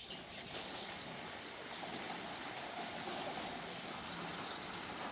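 Garden sprinkler spraying water with a steady hiss. It sprinkles without spinning, a head that may have seized after sitting unused for over four years.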